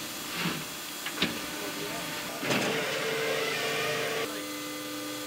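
Hydraulic coaling crane working its grab: a steady engine hum with a hydraulic whine that shifts pitch about four seconds in. There is a sharp click about a second in and a brief rush of noise around two and a half seconds in.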